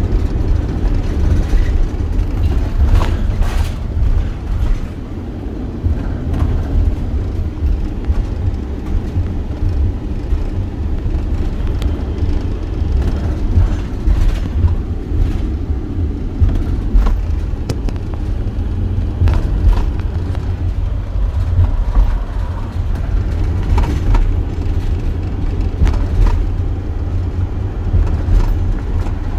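Steady low road rumble of a moving car, heard from inside, with a few brief knocks and rattles.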